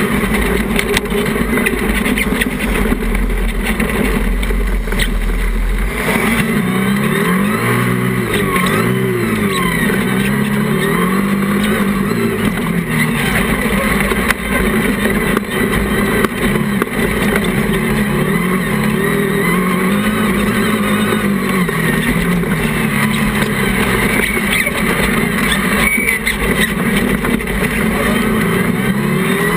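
Engine of a Class 1 off-road racing buggy heard from on board at race pace, its revs rising and falling again and again through the corners and gear changes. A heavy low rumble sits under it for the first few seconds.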